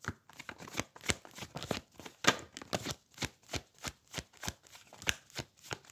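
Tarot deck being shuffled by hand: a steady run of sharp card snaps, about four a second.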